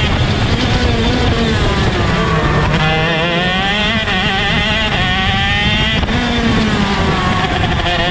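Onboard sound of a 125cc two-stroke shifter kart engine, running hard through corners. The revs fall for the first couple of seconds, then pick up sharply and climb and drop several times with the gear changes and throttle.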